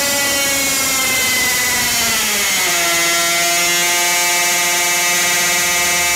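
High-revving two-stroke engine running hard on a water-brake dynamometer. Its pitch holds high, then falls about two seconds in and settles at a steady lower note, the revs dropping from about 13,000 to about 10,500 rpm under the brake's load.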